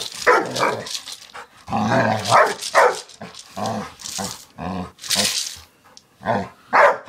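Yellow Labrador barking in a quick, uneven series of short barks, with a couple of breathy huffs in between: fearful barking at a piggy bank it is scared of.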